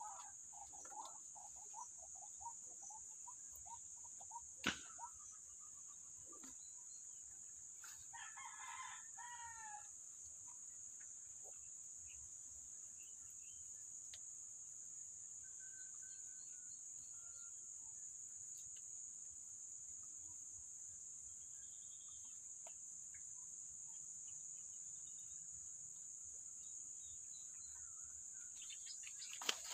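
A rooster crowing once, about eight seconds in, over a steady high-pitched drone; a single sharp click comes a few seconds before the crow.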